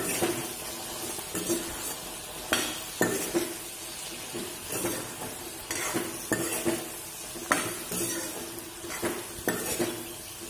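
Metal spoon stirring okra in a hot kadai, with repeated irregular scrapes and clinks against the pan over a low sizzle of frying.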